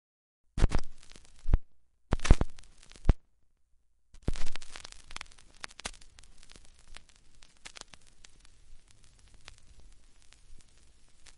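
Vinyl record surface noise: crackle and pops from a stylus riding in the groove of a spinning record. It comes in two short bursts with sharp, loud clicks, then after a brief silence settles into steady crackle about four seconds in.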